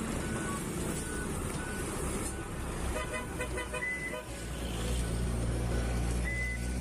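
A toy dump truck's electronic sound effects: a recorded engine rumble under a steady run of short, evenly spaced reversing beeps. A quick jingle of beeping tones comes about three seconds in, and short horn toots follow near the end.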